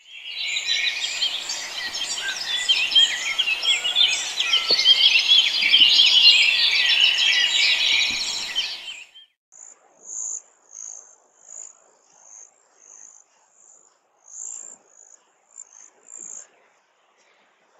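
Dense chorus of many small birds chirping and trilling together, which cuts off about nine seconds in. It is followed by a single high, thin note repeated about once or twice a second, which stops near the end.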